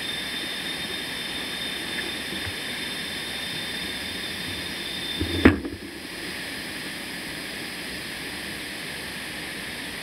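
Mountain bike rolling along a rocky dirt forest trail: a steady rushing hiss of wind and tyres, with one sharp knock a little past halfway, where a thin high whine cuts off.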